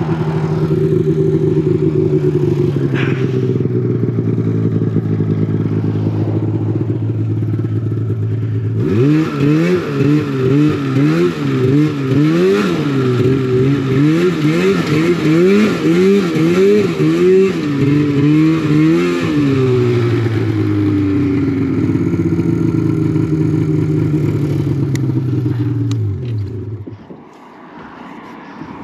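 Polaris RMK 800 two-stroke snowmobile engine running at low speed, then blipped up and down about once a second for some ten seconds as the sled climbs onto a trailer. It settles to a steady, falling note and cuts off near the end.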